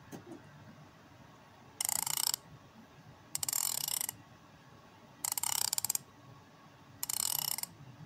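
Four short bursts of rapid ratcheting clicks, each about half a second long and spaced roughly one and a half to two seconds apart, as a knob on a homemade TARDIS console prop is turned.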